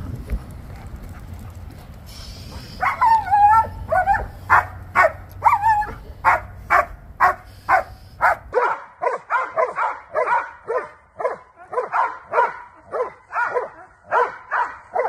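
Protection-trained dogs barking aggressively, in quick repeated barks about two a second that start about three seconds in and keep on after a cut to a second dog. A low wind rumble comes before the barking.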